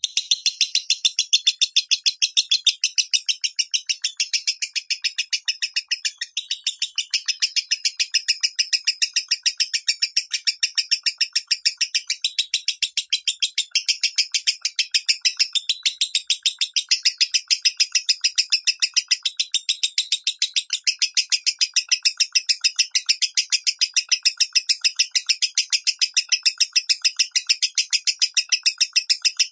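Lovebird singing in the high-pitched 'minor' style: a fast, unbroken run of sharp, shrill chirps, many a second, starting abruptly.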